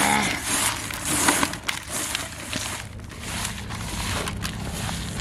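A hand stirring and squeezing coarse, grainy fish bait in a plastic tub: a dry rustling and crunching of the grains, with many small crackles over the first three seconds, then quieter.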